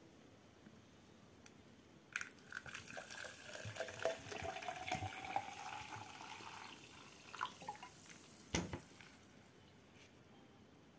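Sparkling mineral water poured from a plastic bottle into a plastic measuring jug for about five seconds, rising in pitch as the jug fills. A few clicks follow, then a single knock about two-thirds of the way through.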